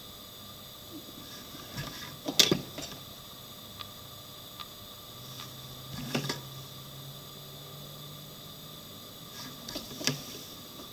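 Drawing instruments knocking and clicking against a drawing board in three short clusters, the loudest about two and a half seconds in and the others near six and ten seconds. A few single light ticks fall between them, over a steady hiss.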